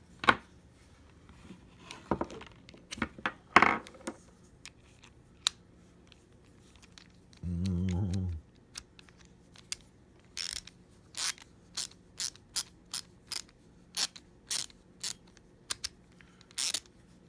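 Small metal hand tools from a screwdriver bit set being handled: scattered sharp clicks, a brief low buzz lasting about a second near the middle, then a run of sharp ratchet-like clicks, two or three a second, through the second half.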